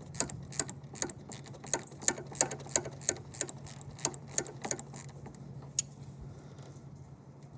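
Socket ratchet clicking in quick, even strokes, about three a second, as the nut on the negative battery terminal is backed off; the clicks stop after about five seconds, with one last click near six seconds.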